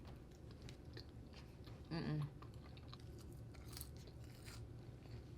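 A person chewing food close to the microphone, with small wet mouth clicks and crunches. There is a short louder sound about two seconds in.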